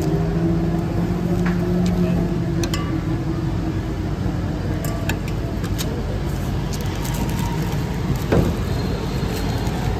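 Street ambience: steady traffic and engine rumble with a low engine hum through the first few seconds, and scattered light clinks and taps of a steel ladle and utensils on the counter.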